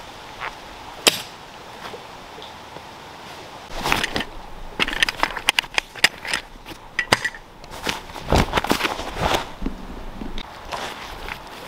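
Heavy canvas of a Polish lavvu tent being unrolled and shaken out on dry leaf litter: crisp rustling, flapping and a few dull thumps, busiest from about four seconds in. Before that, a few scattered steps and crackles in dry leaves.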